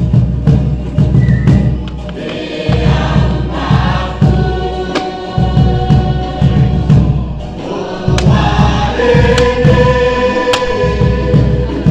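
A chorus of voices singing a Cook Islands (Pukapuka) dance song over a steady, heavy drum beat.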